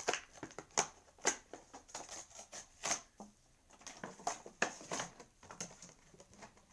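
Irregular clicks and crinkles of toy packaging being handled and opened to take out a Hot Wheels Monster Jam die-cast truck.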